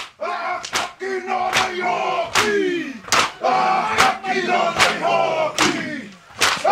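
A group of men shouting a rhythmic chant, with a sharp slap or stamp on each beat, a little more than one a second.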